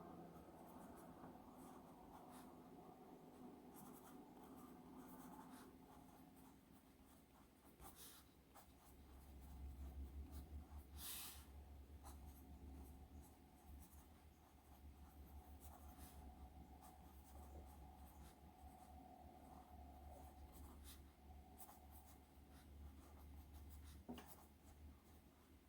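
Faint scratching of a 0.9 mm HB mechanical pencil lead writing on paper, with small irregular ticks as the strokes start and stop.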